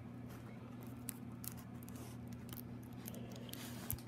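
Faint, scattered crinkling of the plastic film covering a rolled diamond-painting canvas as it is handled, over a steady low hum.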